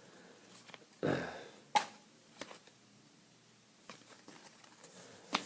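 Trading cards being handled and flipped over: a soft rustle about a second in, one sharp click, and a few light ticks.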